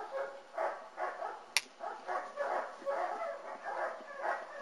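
Ten-week-old German Shepherd puppies calling in short repeated cries, two or three a second, with a single sharp click about one and a half seconds in.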